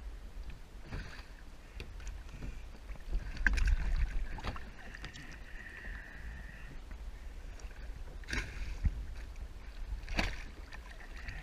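A plastic sit-on-top kayak being tipped and flipped over in the water: water sloshing and splashing around the hull, with several hollow knocks of the plastic as it is handled.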